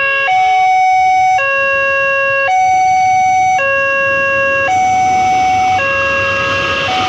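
Railway level-crossing warning alarm from the signal's loudspeaker, switching back and forth between a higher and a lower electronic tone about once a second. A rushing noise builds up under it from about five seconds in.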